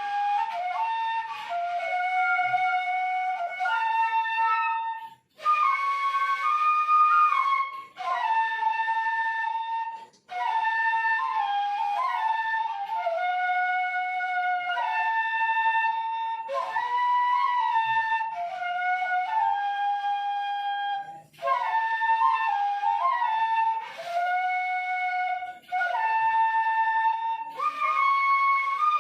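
Traditional bamboo 'seruling emas' flutes playing a melody together in several parts, in phrases broken by short pauses.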